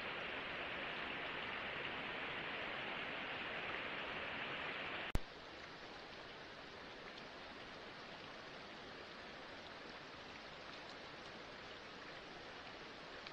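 Steady rushing noise. About five seconds in, a single sharp click cuts it off to a quieter, thinner hiss.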